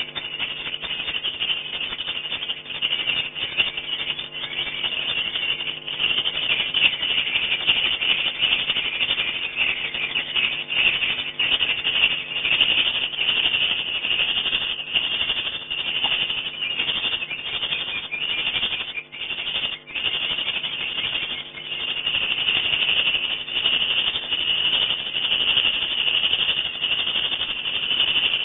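Swiftlets chirping and twittering in a dense, continuous chorus of rapid high clicks and chirps, with a faint low steady hum underneath.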